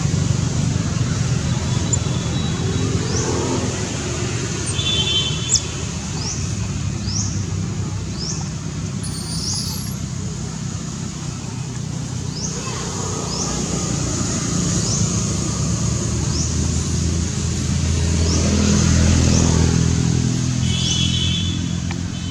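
A motor vehicle's engine running steadily, with a low hum that swells a few seconds before the end. Short, high, rising chirps repeat about once a second over it.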